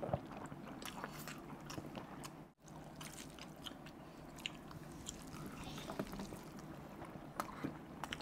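Close-miked chewing and mouth sounds of two people eating spiced rice pulao with gravy by hand, a run of many small clicks over low room tone. The sound drops out briefly about two and a half seconds in.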